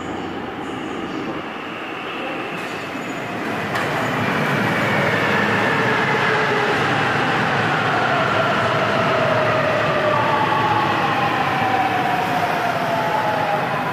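Busan Metro Line 2 subway train pulling into an underground station: a rush of wheels on rail with a motor whine in several tones that falls slowly in pitch as the train brakes. It grows louder about four seconds in, as the train reaches the platform.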